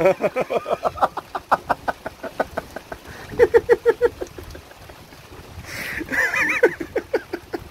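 Several people laughing in runs of quick, rapid pulses, with a higher-pitched laugh about six seconds in.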